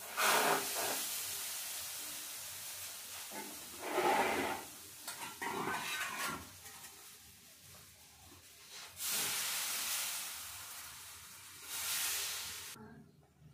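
Patishapta batter and oil sizzling on a hot tawa over a gas flame. The sizzle flares up sharply several times, strongest at the start and again about nine seconds in, each burst dying away over a second or two.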